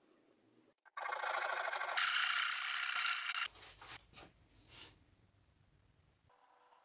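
A harsh rasping, scraping friction sound starts about a second in. It gets brighter halfway through and cuts off sharply after about two and a half seconds. A few faint knocks and a faint low hum follow.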